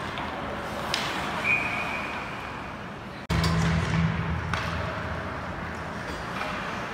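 Ice hockey game noise in a rink: skates on ice, sharp clacks of sticks and puck, and a steady crowd and arena hubbub. A short, high whistle tone sounds about a second and a half in, and the sound cuts out abruptly about three seconds in, coming back with a low hum underneath.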